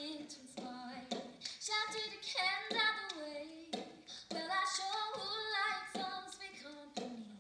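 A woman singing solo on stage, holding sung notes and gliding between pitches.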